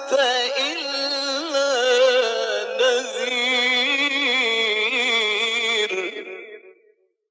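A male Quran reciter draws out the final word of a verse in one long, ornamented melodic phrase, his pitch wavering up and down. The voice fades out just before the end.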